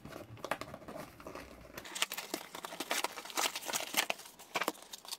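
A cardboard toy box and its plastic insert being opened by hand: rustling and crinkling with many small clicks and scrapes. The handling grows busier about two seconds in.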